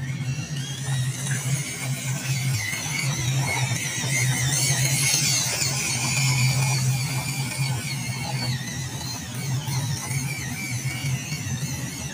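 Electric motor and gearbox of a WPL D12 RC pickup truck whining as it drives over wet mud and grass, getting louder in the middle.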